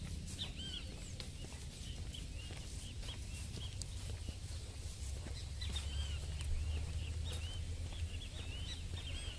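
Many short birds' chirps repeating over a low rumble, with the soft steps of a horse walking through dry grass.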